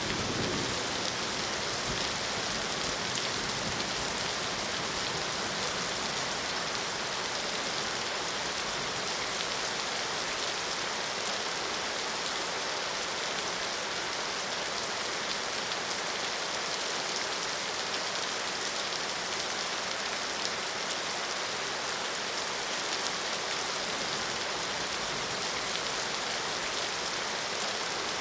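Steady, heavy rain falling, a dense even hiss with no break. A low thunder rumble dies away in the first second.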